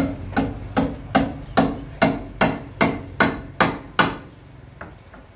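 Hammer blows on timber in a steady rhythm of about two and a half strikes a second, stopping about four seconds in, as a wooden scaffolding pole is fixed in place.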